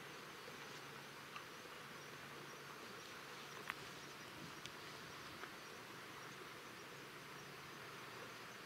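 Faint, steady outdoor background noise with an even hiss, a low hum that fades in the middle and returns near the end, and a few small ticks, the sharpest about three and a half seconds in.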